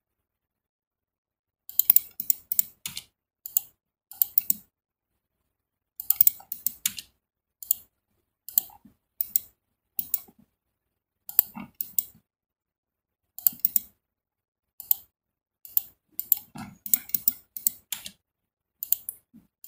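Computer mouse button clicking in quick clusters of two to four, every second or two, as points of a curve are placed in CAD software.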